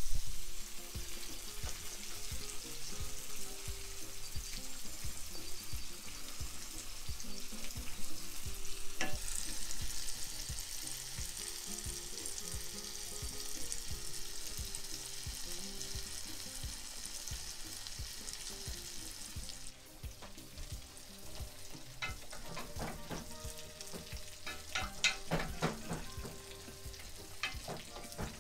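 Pike perch fillets sizzling steadily in hot oil in a frying pan. In the last several seconds a spoon clicks and scrapes against a pot while stirring a creamy sauce. Background cumbia music with a steady beat runs underneath.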